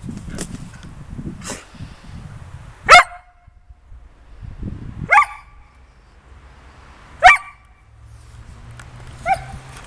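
Collie barking: three loud, sharp single barks about two seconds apart, then a softer one near the end. She has the stick dropped at her feet, and the barks are a demand to have it thrown for fetching.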